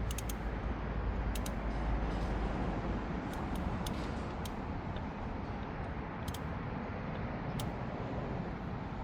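Scattered sharp metallic clicks of a 22 mm deep socket and ratchet at work on a transmission oil pressure switch, a dozen or so at uneven spacing, over a steady low outdoor rumble.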